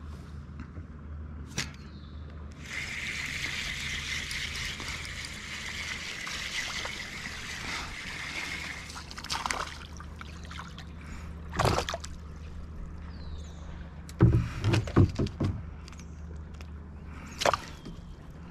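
Reel cranking in line with a steady whir for about six seconds, then a hooked bass splashing and thrashing at the surface beside a kayak: single splashes, then a quick run of loud splashes and knocks against the hull near the end.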